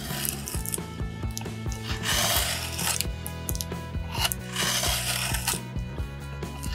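Forged long bowl-carving gouge scooping wood out of a board in scraping cuts, the loudest cut about two seconds in, with shorter cuts later, over background music.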